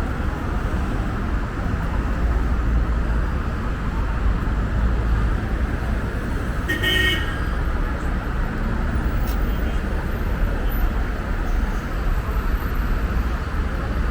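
City street traffic: a steady low rumble of passing road vehicles, with a short high-pitched tone, like a brief toot, about seven seconds in.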